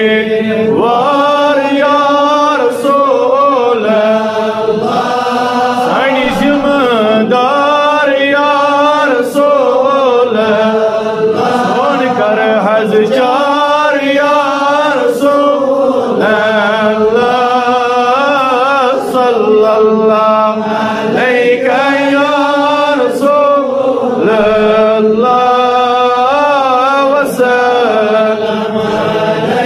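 Unaccompanied male devotional chanting (a naat) in layered voices, long wavering melismatic notes that pause briefly every second or two.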